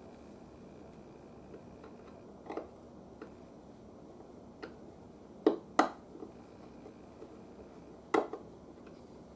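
A few sharp clicks and knocks of a radio bezel being handled and fitted back onto the radio: scattered light ones, then the loudest, a quick pair about five and a half seconds in and another single knock near eight seconds.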